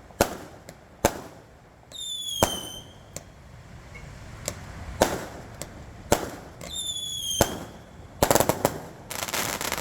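Fireworks going off: sharp bangs every second or so, two whistles that slide slightly down in pitch and each end in a bang, and a dense burst of crackling near the end.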